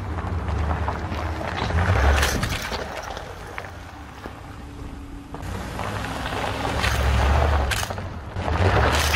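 Pickup truck engine running and tyres rolling over gravel as the truck drives over a plastic toy blaster. The engine rumble swells and fades over several passes, with a few sharp cracks, the loudest about two seconds in and near the end.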